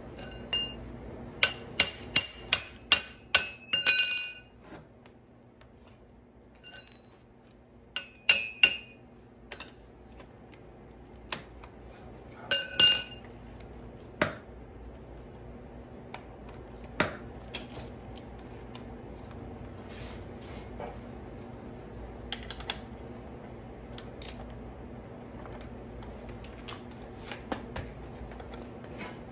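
Steel parts clinking and clanking together with a short bell-like ring. There is a quick run of about half a dozen strikes in the first four seconds, more around eight and thirteen seconds in, then scattered lighter ticks. These come from a clamp-type coil-spring compressor and strut assembly being handled and fitted.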